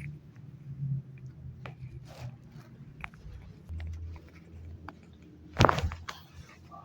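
Chiropractic spinal manipulation: one sudden loud crack with a thud of the thrust about five and a half seconds in, and a weaker second crack right after it. Faint clicks and rustles of handling come before it.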